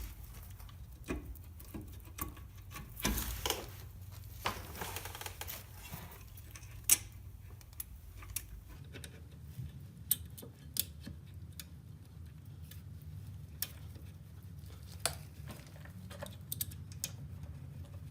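Irregular metallic clicks, clinks and taps of hand tools and bolts as a brake caliper is fitted back onto its mounting bracket, with a few short scrapes a few seconds in and the sharpest clink about seven seconds in.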